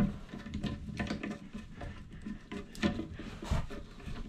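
Plastic toilet-seat hinge hardware being worked by hand with a Phillips screwdriver to tighten the mounting bolt: a run of small, irregular clicks, taps and scrapes.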